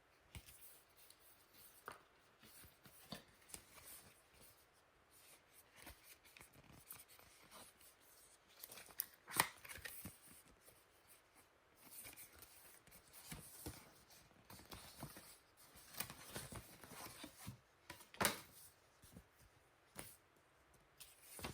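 Faint handling sounds of a folding phone gimbal and its cardboard packaging: scattered light clicks and rustling, with sharper clicks about nine and eighteen seconds in.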